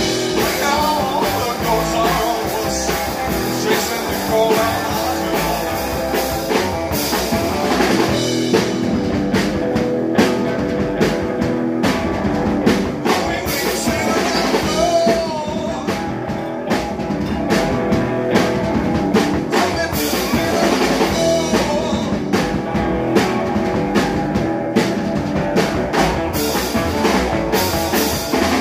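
Live rock band playing: a distorted-free electric guitar and a drum kit keeping a steady beat, with a man singing into a microphone.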